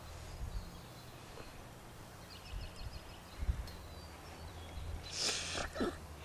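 Quiet outdoor ambience with a steady low rumble and faint bird chirps, then a short hiss about five seconds in.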